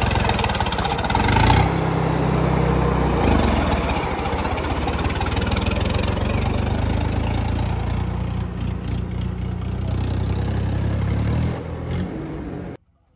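Tractor diesel engine running, its pitch shifting up and down a few times, with a high whine above it; the sound cuts off abruptly near the end.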